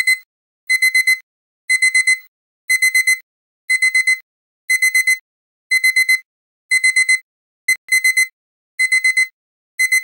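Electronic alarm-clock beeping signalling that the countdown timer has finished: quick groups of about four high-pitched beeps, about one group a second.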